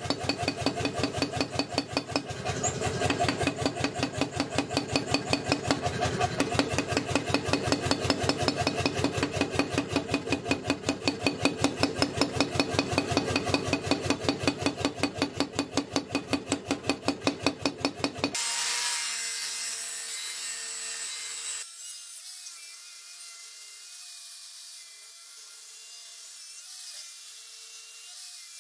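Power forging hammer pounding a white-hot Damascus billet in a fast, even rhythm of ringing steel blows, roughly four to five a second, forge-welding the stacked layers. The blows stop abruptly about two-thirds of the way through, followed by a brief hiss and then a faint, steady hum.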